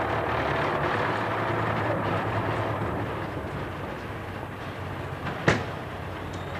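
A van's engine and tyres on a wet road as it pulls slowly away, loudest at first and fading, over a steady low hum. There is one sharp click about five and a half seconds in.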